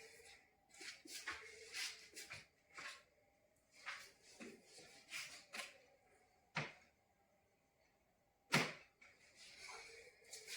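Rustling and shuffling of bodies and clothing against a treatment table during a hands-on spinal adjustment, with two sharp knocks about six and a half and eight and a half seconds in.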